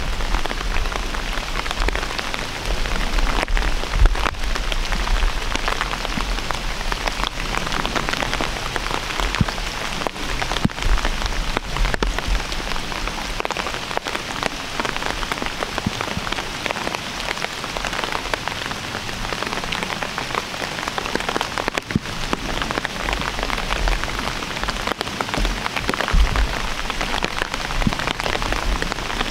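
Steady rain falling through leafless woods, many small drops ticking on branches and dead leaves, with occasional low rumbles underneath.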